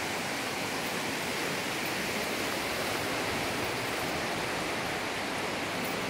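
Running water of a shallow rocky stream: a steady, even rushing hiss.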